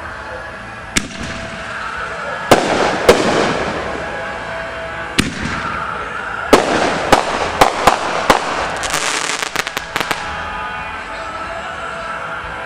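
Fireworks going off: a series of sharp bangs at irregular intervals, some followed by a hissing, crackling tail, then a quick run of crackling pops about nine seconds in.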